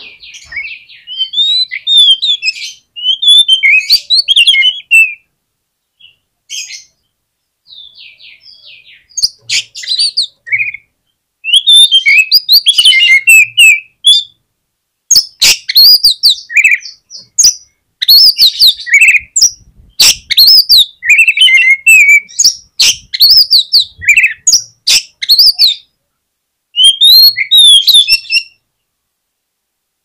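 Oriental magpie-robin singing loud, varied whistled phrases broken by short pauses, mixed with sharp clicks.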